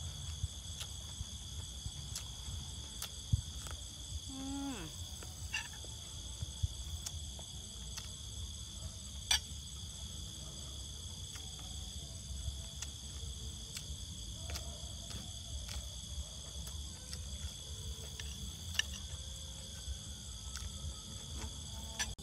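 Night chorus of crickets, a steady high trilling that does not let up, with scattered small clicks and taps from eating by hand at the table.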